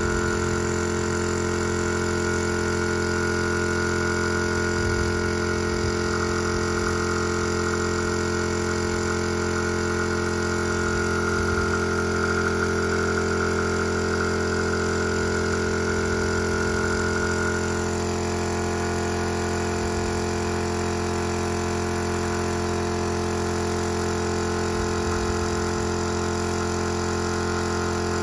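Small air compressor running with a steady hum; one high tone in it shifts slightly about eighteen seconds in.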